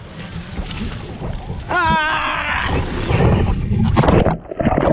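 Water rushing and splashing down an inflatable water slide, with water and wind buffeting the camera's microphone in irregular gusts and thumps.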